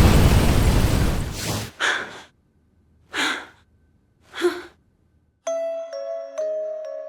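A loud rushing noise cuts off, then a woman gasps for breath three times, about a second and a half apart. A soft glockenspiel-like mallet melody begins about five and a half seconds in.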